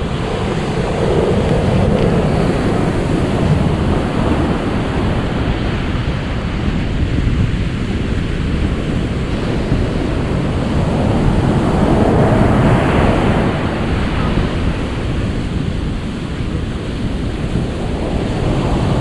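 Ocean surf washing in as a steady rush, swelling louder about a second in and again about twelve seconds in.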